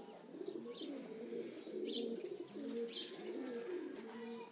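Domestic pigeons cooing continuously, several overlapping rolling coos, with a few short high chirps above them.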